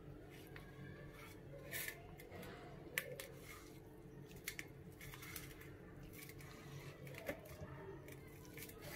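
Kitchen knife cutting soft homemade tofu into cubes on a stainless steel plate: faint scattered clicks and scrapes where the blade meets the plate, over a low steady hum.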